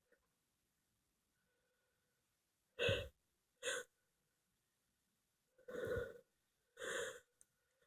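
A person's faint, sharp gasping breaths, four short inhalations in two pairs: the catching breaths that build up to a sneeze.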